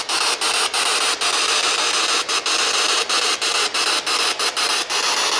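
Spirit box (ghost box) scanning through radio frequencies: a steady hiss of static broken by short dropouts, two to three a second, as it jumps from station to station.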